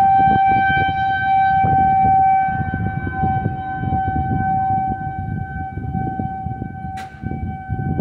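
Outdoor civil-defense warning siren sounding a steady, unchanging tone, sounded for a thunderstorm warning; it is loudest in the first couple of seconds, then a little weaker. A low rumbling noise runs underneath, and there is one sharp click about seven seconds in.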